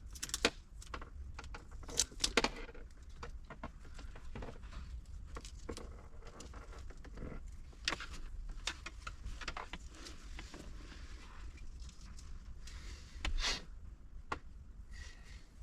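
Scattered light clicks, taps and rustling from handling small dash cam parts and cables.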